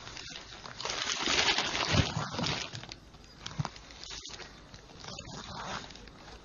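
Newspaper pages rustling as they are handled and turned, in bursts, loudest about one to two and a half seconds in.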